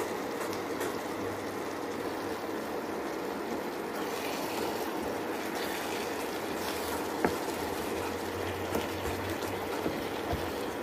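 Eggplant curry simmering in a pan with a steady bubbling hiss, as a wooden spoon stirs curry powder and coconut through the vegetables. A sharp knock about seven seconds in, with a few lighter clicks after it.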